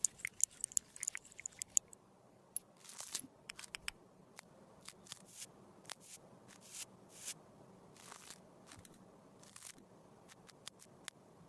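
Handling of cosmetics and tools for lipstick repair: a quick flurry of sharp little clicks and taps, then scattered single clicks and a few short scrapes.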